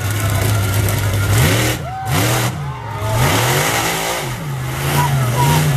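Monster truck engine running steadily, then revving hard several times with the pitch swinging up and down as the throttle is worked over a row of junk cars, settling again near the end.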